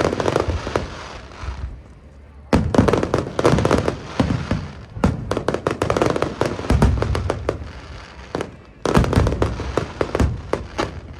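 Aerial fireworks going off in rapid volleys: booming shell bursts over dense crackling, with a fresh loud barrage starting about two and a half seconds in and another near the end.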